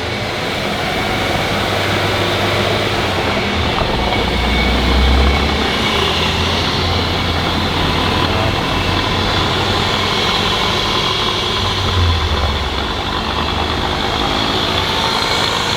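BMW X3 F25 rear drivetrain running in gear on a lift with the wheels turning, heard up close at a wheel bearing: a steady mechanical running noise over a low hum. The mechanic puts this noise down to the differential's centre gears working because a dragging brake holds one wheel while the other turns, which he calls normal.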